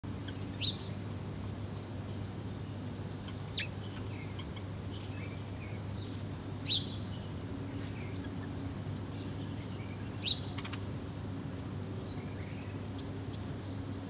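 House sparrows chirping: four loud, sharp chirps about three seconds apart, with softer short chirps in between, over a steady low hum.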